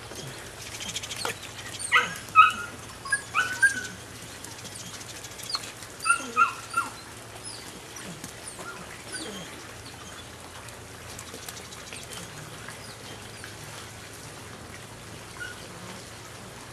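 Belgian Malinois puppy giving short, high yips: a handful about two seconds in and a few more about six seconds in.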